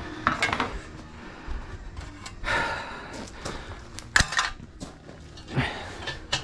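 Scattered metal clanks and scrapes from foundry gear and a pan being handled, with one sharp, loud clank about four seconds in.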